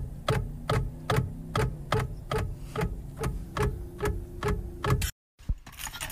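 Car turn-signal indicator clicking steadily, about two and a half clicks a second, over a faint hum; it stops abruptly about five seconds in.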